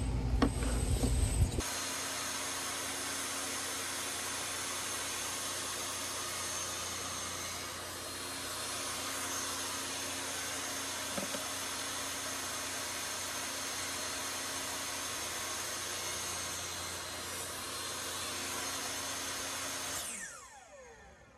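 Table saw blade cutting through scrap wood for about the first second and a half of a tenon test cut. The saw then runs on steadily without load, and is switched off near the end, its pitch falling as the blade spins down.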